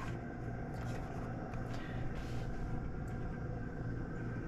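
Steady low hum of room background, with a few faint light taps.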